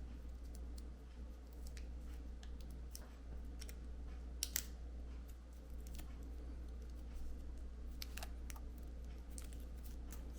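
Faint scattered clicks and rustles of hands wrapping a LiPo battery pack, with one sharper click about four and a half seconds in, over a steady low hum.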